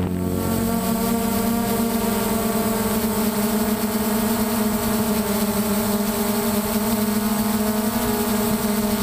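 DJI Phantom quadcopter's motors and propellers humming steadily, heard from on board the aircraft: a multi-tone whine that shifts slightly in pitch.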